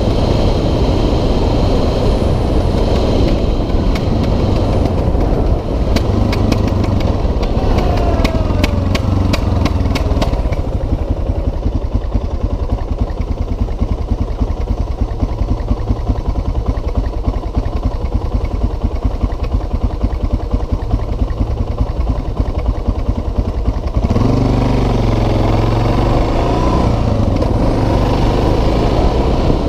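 2006 Suzuki DR650SE's single-cylinder four-stroke engine, heard from the rider's helmet with wind on the microphone: it rolls off and slows, idles steadily for about thirteen seconds from about ten seconds in, then revs up and pulls away about six seconds before the end.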